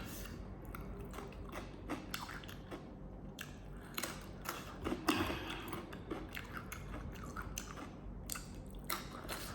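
A person chewing food, quietly, with many small irregular clicks and smacks of the mouth.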